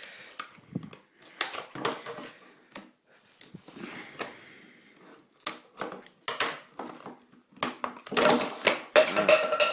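Plastic clicking and clattering of a MoYu Weilong GTS speedcube being handled and turned, in scattered clicks with a dense run of quick turns near the end.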